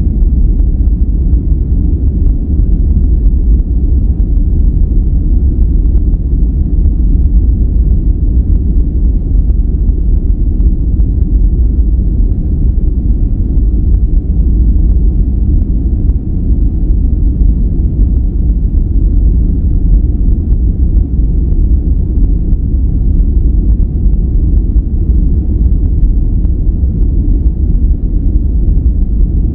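Continuous noise for sleep and relaxation, deep and rumbling, with most of its weight in the bass and very little treble. It holds perfectly steady, with no changes or separate sounds.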